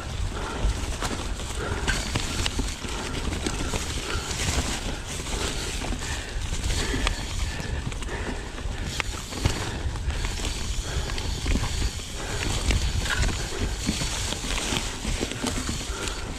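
Mountain bike rolling over rough forest singletrack: tyres crunching over dirt and roots, with frequent sharp knocks and rattles from the bike, over a steady low wind rumble on the microphone.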